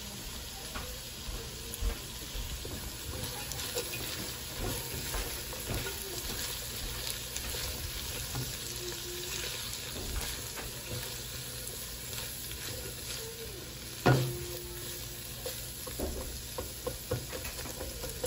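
Chopped carrots, peas and green onion sizzling in a nonstick wok as a silicone spatula stirs and turns them, with soft scraping and light ticks against the pan. One louder knock comes about two thirds of the way through.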